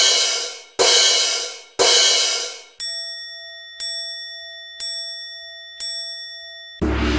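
Level-crossing warning bell sounds striking about once a second. There are three harsh clanging strikes, then four cleaner dings of a purer tone. Near the end a loud, steady rumbling noise sets in.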